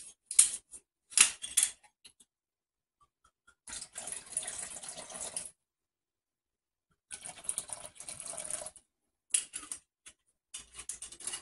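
Wine poured from a glass bottle into the strained sorrel, two splashing pours of under two seconds each, about four and seven seconds in. Short clicks and knocks of the bottle and cap come before and after.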